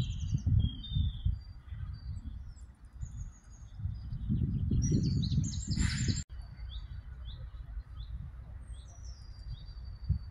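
Small songbirds chirping and singing, with low gusts of wind buffeting the microphone. After a cut partway through, one bird repeats a short downward-sliding call at a steady pace, under a quieter wind rumble.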